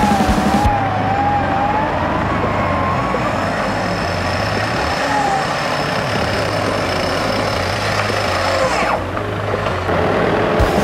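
Front-bumper electric winch on an off-road Jeep hauling its cable under load, its motor whining and shifting in pitch over the running engine. The whine falls away about nine seconds in.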